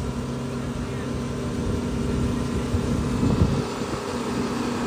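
A running machine drones steadily at one constant pitch.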